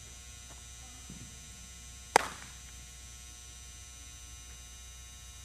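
A single sharp smack about two seconds in, a baseball caught in a leather glove as the ball is returned to the pitcher, over a steady electrical hum.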